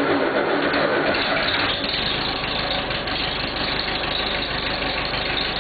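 Cold start of a 1976 Massey Ferguson 50D backhoe's diesel engine: cranking gives way about a second in as the engine catches, then it runs steadily at idle.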